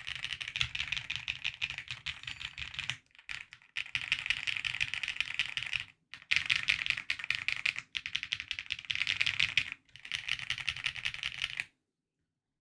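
Fast typing on a QK75N mechanical keyboard with stock Owlab Neon switches, NicePBT keycaps, a polycarbonate plate and case, PE and plate foam. It comes in dense runs of keystrokes broken by brief pauses, and stops abruptly about a second before the end.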